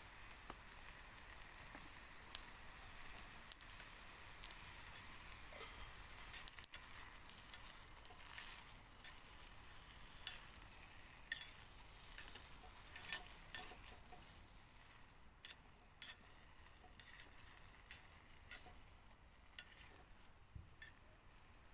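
Faint, scattered clicks and clinks of cooking utensils against pots and dishes, over a low steady hiss.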